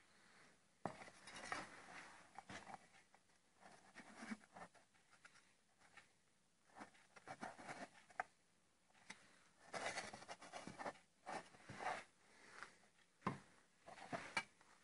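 Faint, irregular handling noises: a sheet-metal part with a round collar being picked up, turned and set down with gloved hands on a workbench, with light scrapes, rustles and knocks, the loudest knocks about a second in and near the end.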